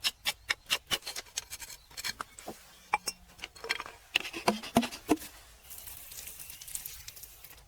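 Quick sharp taps and clinks of hard objects knocking together, several with a brief ringing tone, then a short hissing scrape near the end.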